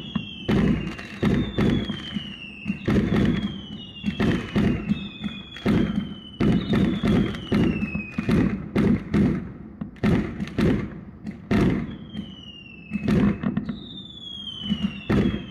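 Fireworks going off in quick succession: repeated sharp bangs and pops, many followed by a whistle that falls in pitch over about a second.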